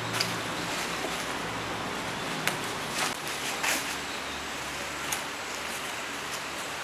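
A few footsteps on dry leaf litter, scattered short rustles over a steady background hiss.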